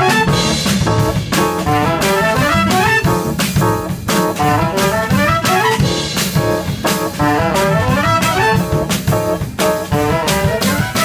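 Small jazz combo playing live: trumpet and saxophone play fast melodic lines together over double bass and drum kit.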